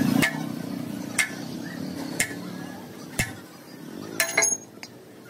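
Sledgehammer blows on a cast-iron engine block: sharp metallic strikes about once a second, with a quicker cluster of clanging hits near the end that ring briefly.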